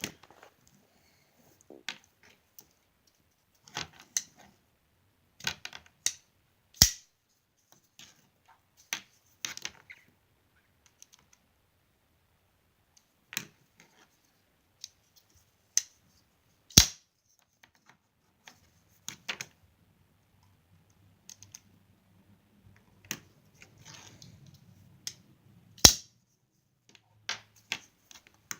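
Scattered light clicks and taps of a ZT 0550 folding knife and small tools being handled while the pivot screws are adjusted, with three much louder sharp clicks about ten seconds apart. A faint low hum joins in about two-thirds of the way through.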